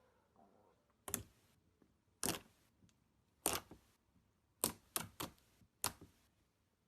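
Crisp, sharp pops of slime being pressed and handled, seven separate snaps, the last four coming closer together.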